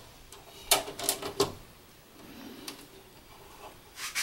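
Sharp plastic clicks and scrapes of an insulated wire being handled and pushed down through the slotted plastic wiring duct of an electrical enclosure: a quick run of clicks about a second in, then two more near the end.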